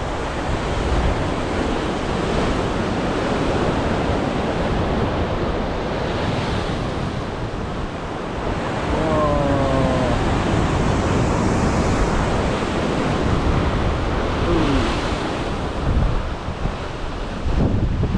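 Ocean surf washing in steadily, with wind buffeting the microphone. About nine seconds in there is a short run of quick, falling pitched calls, and another single falling note comes a few seconds later.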